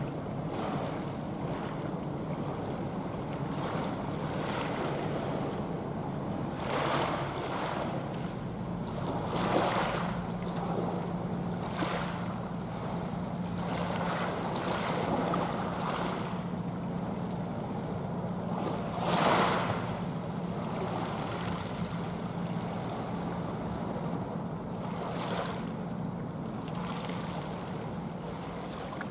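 Waves washing and wind buffeting the microphone in gusts, with a low steady hum from the passing container ship that sets in about nine seconds in.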